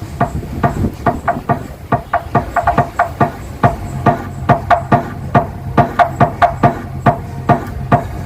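Dance-remix beat played loud through Crown JH-1512 loudspeakers on a sound test: fast, steady percussive hits, about four to five a second, over a deep bass.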